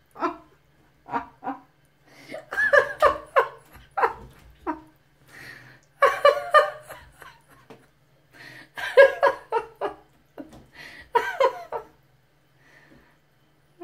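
A person laughing in repeated fits of short breathy bursts.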